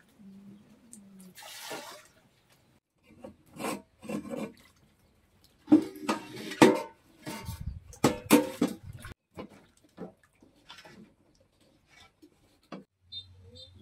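Sweet potatoes being washed by hand in a steel bowl of water: water sloshing and splashing, with the tubers rubbing and knocking against the bowl in irregular bursts, busiest about halfway through.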